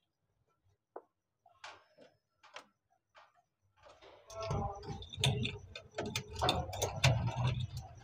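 Short clicks and scrapes of a metal screwdriver working inside the plastic drain-pump housing of a top-load washing machine, prying out a coin that was stuck in the pump. About four seconds in, a louder, dense run of knocks, clicks and handling noise starts as the pump and hoses are handled.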